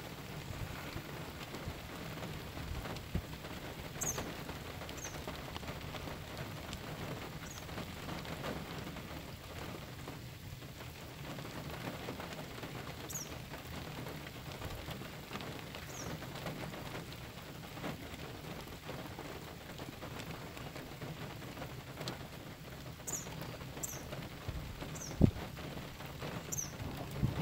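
Steady rain pattering, with a few short, high, falling bird chirps scattered through it and a single knock near the end.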